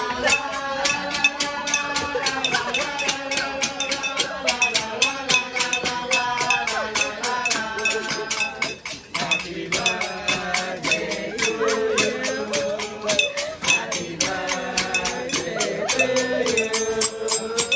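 Background music: a song with a sung melody over fast, even percussion.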